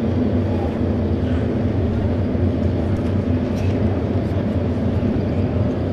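Several auto race motorcycles idling together on the starting grid: a steady low engine drone with no revving.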